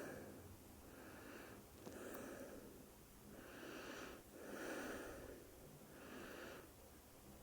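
A person breathing audibly in and out, five breaths each lasting under a second.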